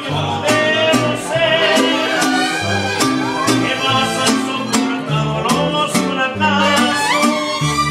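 Live mariachi band playing: violins carry the melody over strummed guitars and a stepping bass line, in a steady rhythm.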